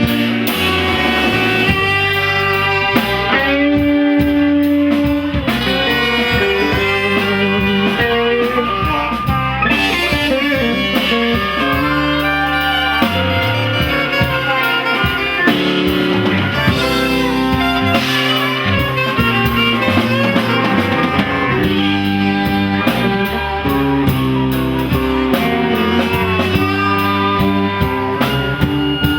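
Live band playing, with guitar over a drum kit.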